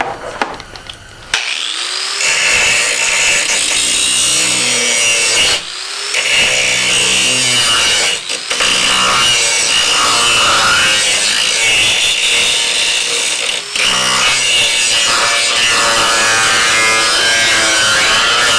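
Small handheld grinder cutting into the metal inner structure of a Jeep Wrangler hood, throwing sparks. It starts about a second and a half in and runs as a high whine, dipping briefly a few times.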